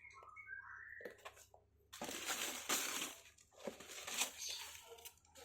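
Paper or plastic packaging crinkling and rustling as it is handled, in two bouts, after a few short high chirps in the first second.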